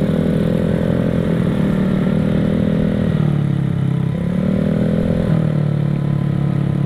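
Vespa automatic scooter's single-cylinder engine, rebuilt to a 63 spec and still being run in, running under way on a wet road. Its note drops about three seconds in, climbs again a second later and eases back after five seconds as the throttle is worked.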